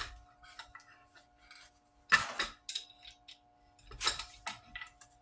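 A metal 4-inch C-clamp being loosened and taken off a glued guitar neck: scattered metallic clinks, rattles and knocks, the loudest right at the start.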